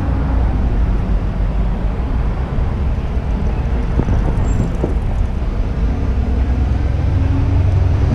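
Town-centre street ambience: a steady low rumble of road traffic.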